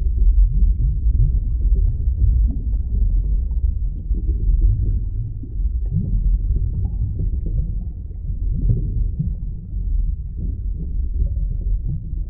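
Underwater ambience: a steady deep rumble with faint short bubbling glides and blips above it.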